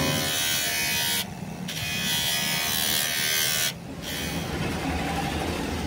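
A loud, steady hiss that cuts out sharply twice for a moment and fades away about four seconds in.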